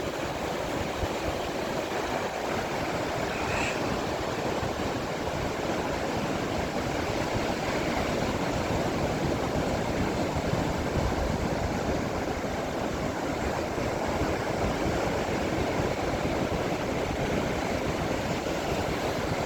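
Ocean surf: a steady, even rush of breaking waves, with no separate crashes standing out.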